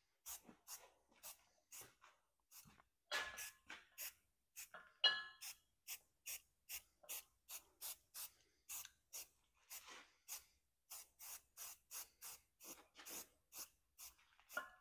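Aerosol spray-paint can (Rust-Oleum enamel) sprayed in short, quick spurts of hiss, about two to three a second, as the steel plate is coated. A couple of brief ringing clinks come a few seconds in.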